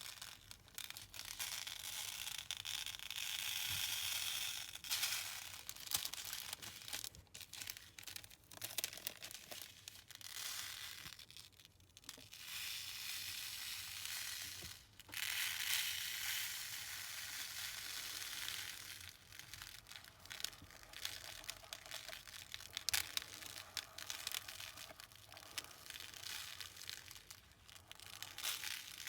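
Thousands of tiny beads pouring and trickling out of a cut-open foam snake squishy onto wax paper. It makes a hissing, rattling patter that swells in long runs, with scattered small clicks and crinkles between them.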